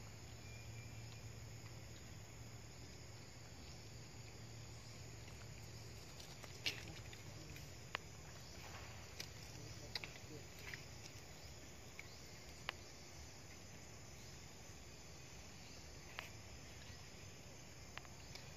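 Faint outdoor ambience with a low hum, and a scattered series of short sharp clicks and snaps in the second half.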